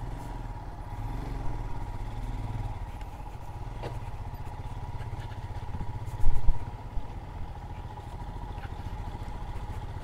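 Motorcycle engine running at low speed while riding over a rough dirt track, with a short cluster of louder knocks from bumps about six seconds in.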